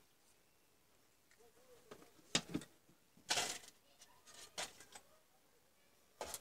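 Handling sounds from a Dremel 3000 rotary tool's opened motor housing: a few sharp clicks and a brief scraping rustle of plastic and metal as the armature is slid out of it, the longest about halfway through.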